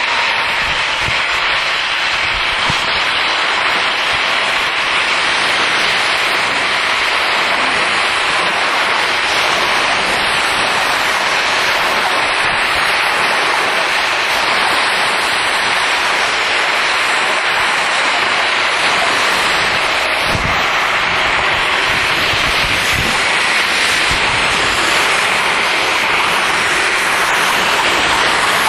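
High-pressure washer spraying water onto trucks: a loud, steady hiss of spray.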